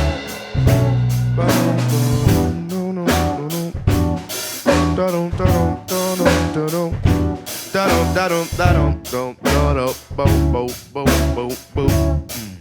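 Live band playing an instrumental passage of a soul-jazz song: drum kit keeping a steady beat under a bass line, with a wavering melodic lead line on top.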